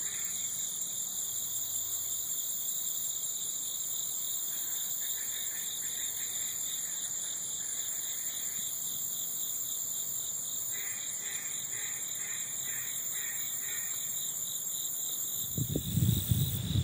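Steady, high-pitched pulsing trill of insects. Two faint runs of short, evenly spaced notes from a custom-cut duck call come through it, about 4 to 6 seconds in and again about 11 to 13 seconds in.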